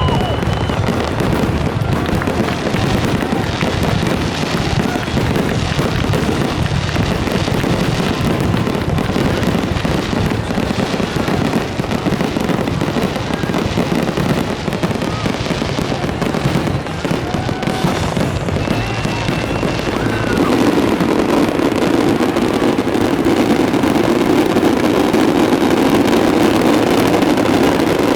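Fireworks going off in rapid, continuous succession: dense crackling and bangs with a few brief whistling tones. About twenty seconds in, a steadier lower rumble joins and the overall level rises a little.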